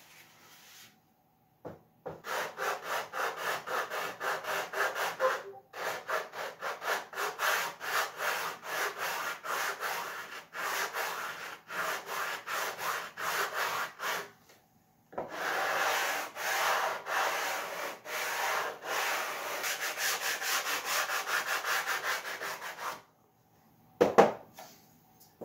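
Sandpaper rubbed back and forth by hand over the wooden sponson ride pad of a model tunnel-hull boat, at about three strokes a second, pausing briefly twice. He is taking wood off the inside edge to lower the pad's angle by about half a degree.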